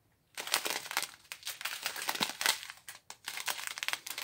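Clear plastic bags of diamond painting drills crinkling as the strip of sealed packets is handled, in irregular crackly bursts.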